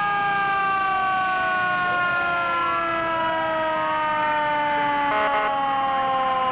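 Fire truck sirens sounding together: one siren holds a long tone that slowly falls in pitch, while other sirens wind upward beneath it about two and three seconds in.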